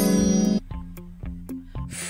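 Children's background music with light plucked notes repeating about four times a second. A loud, steady held tone stops about half a second in.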